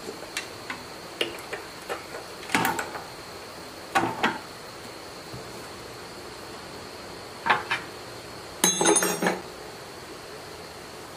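Metal hand tools and engine parts clinking and knocking as a small single-cylinder diesel engine is reassembled: scattered light clicks, a few louder metallic knocks, and a short rattling clatter about nine seconds in.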